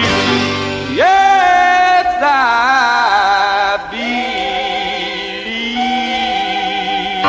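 Music: the closing bars of a recorded song, long held notes with a wavering vibrato, a new high note starting about a second in.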